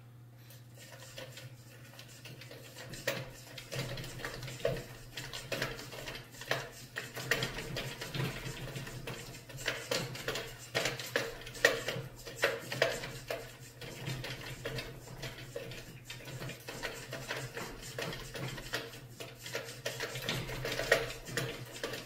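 Animatronic marionette rig running: a steady low motor hum with irregular clicks and clatter from about three seconds in, as the wire-strung carved monkey puppet's limbs are jerked about.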